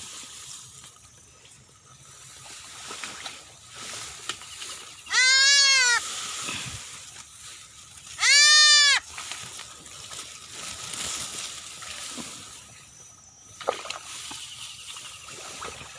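A goat kid left behind by its mother bleating twice, two loud high calls each under a second long and about three seconds apart, each rising and then falling in pitch.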